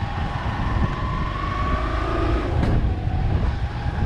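Motorcycle riding along at a steady pace: a faint engine hum whose pitch drifts slightly, under a steady rumble of wind on the microphone.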